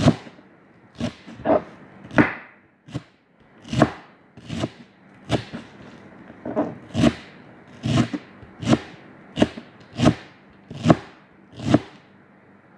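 Chef's knife chopping parsley on a plastic cutting board: single sharp knocks of the blade against the board, about one or two a second at an uneven pace, stopping shortly before the end.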